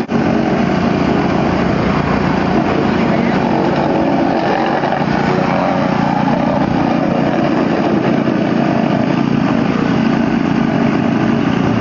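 Plate compactor running steadily, its small gasoline engine driving the vibrating steel plate as it tamps down a fresh asphalt patch.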